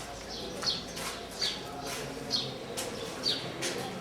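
A small bird chirping over and over, about once a second, each chirp a short, high, falling note, over a low murmur of voices.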